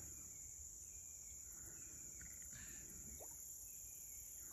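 Faint, steady high-pitched insect chorus over low background noise.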